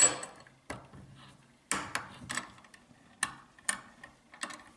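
Sharp metallic clicks and taps from loosening the vise and handling the pistol's recoil spring and guide rod assembly, about nine at uneven spacing, the loudest right at the start.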